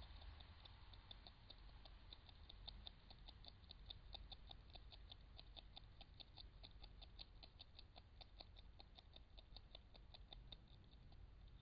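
European beaver chewing willow bark and twigs: faint, rapid, regular crunching clicks, about five a second, that thin out near the end.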